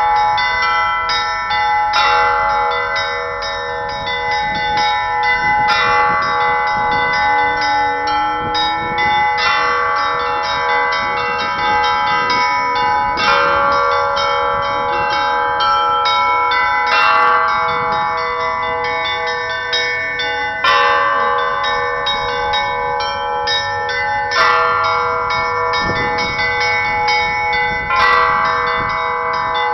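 Russian bells being rung: small bells struck in quick, dense patterns over the lasting hum of the bells, with a heavier stroke about every four seconds.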